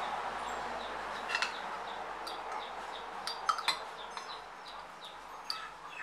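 Light glass-on-glass clinks as a glass jar of red jam is tipped over a double-walled glass and the jam is spooned in: a few separate clinks, with a quick cluster of them about three and a half seconds in.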